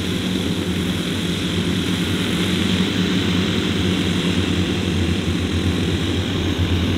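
The OS 10 cc model engines of a 1:10 scale Dornier Do X flying-boat model running together in a steady drone while it taxis on grass.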